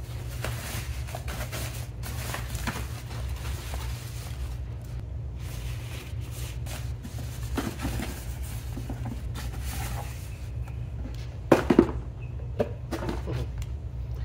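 Soft plastic packing wrap and a cardboard box rustling and crinkling as wrapped parts are handled and lifted out, with a few sharp knocks of hard parts. The loudest is a quick double knock about eleven and a half seconds in. A steady low hum runs underneath.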